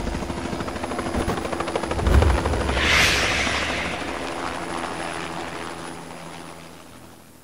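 Logo-sting sound effect: a dense rushing whoosh with a fast flutter, a low boom about two seconds in and a bright swell just after, then a long fade-out.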